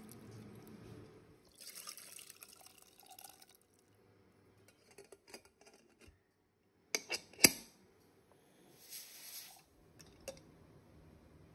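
Buttermilk and chopped banana stem pieces being poured and splashing into a pressure cooker in two short spells, with a quick cluster of sharp metal clinks midway, the loudest sounds, as the cooker and its lid are handled.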